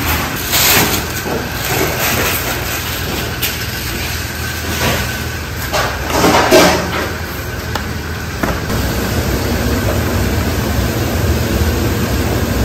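A commercial gas burner under a large pot of boiling water gives a steady low rumble, with the water churning. Greens in a metal mesh strainer are dunked in to blanch, bringing splashes and knocks a few times, loudest about six seconds in.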